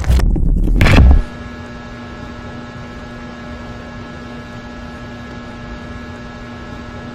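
Custom Backrooms-themed lightsaber sound font: a loud ignition burst for about the first second, then a steady electrical hum with one low tone held throughout.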